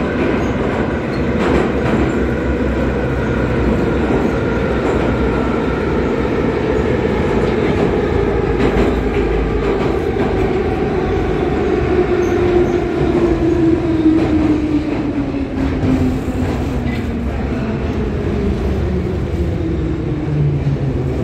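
Em-501 metro train braking into a station: the whine of its running gear falls steadily in pitch over a constant wheel-and-rail rumble, with occasional clicks from the rail joints.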